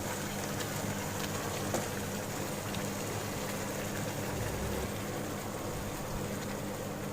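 Thick cream gravy simmering in a kadhai over a gas flame: a steady low bubbling hiss with a few faint pops.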